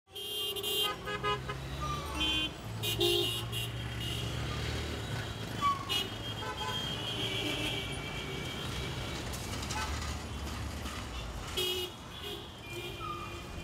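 Busy city street traffic: engines running as a low rumble, with many vehicle horns honking in short, repeated toots throughout.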